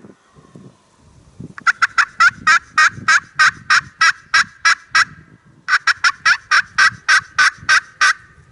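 Turkey yelping in two long, even runs of sharp notes, about four a second, the first run starting fast, with a short break about two-thirds of the way through.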